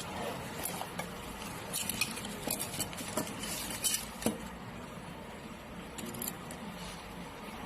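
Small metal sewing-machine parts and hand tools clinking and clicking as they are handled, with a cluster of sharp ticks in the middle few seconds, over a low steady hum.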